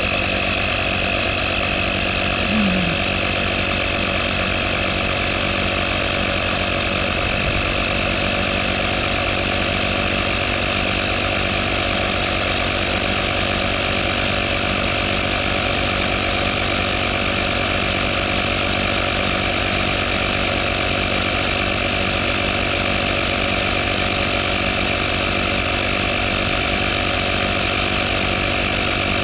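Auto XS digital tyre inflator's compressor running steadily while pumping up a car tyre. It makes a continuous high whine over a fast, even chugging pulse.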